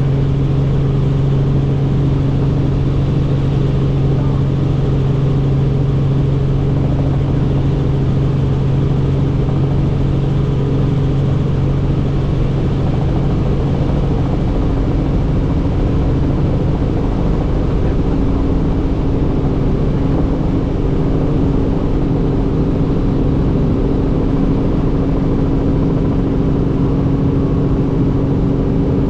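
Helicopter in flight: a steady, loud drone of rotor and engine with a low, even hum. About halfway through, the lowest hum fades while a somewhat higher hum grows stronger.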